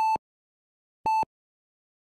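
Heart monitor beeping: two short electronic beeps of one pitch, about a second apart.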